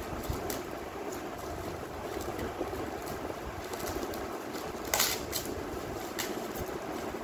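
Plastic parcel wrapping being pulled and torn open by hand, crinkling with a few sharp crackles, the loudest about five seconds in, over a steady low background hum.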